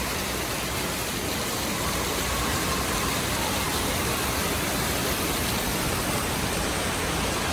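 Steady rushing and splashing of water in an indoor water park, an even, unbroken wash of noise.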